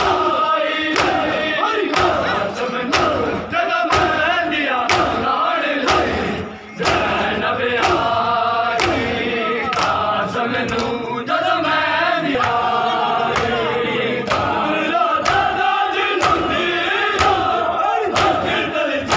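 A large crowd of men chanting a mourning lament together while beating their chests in time, sharp hand-strikes about twice a second.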